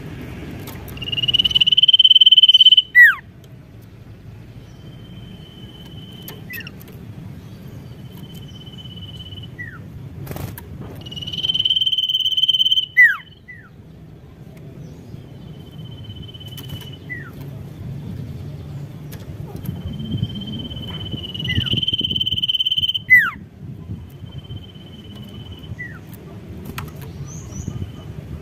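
Caged sirtu (common iora) singing: a high level whistle followed by a quick downward-sliding note, repeated about every three seconds. Three of the whistles, near the start, in the middle and about two-thirds through, are much louder and longer than the rest. A low steady hum runs underneath.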